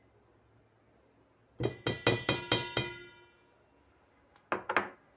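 A stainless steel mixing bowl struck at the rim, ringing: a quick run of about six taps a second and a half in, then three or four more near the end.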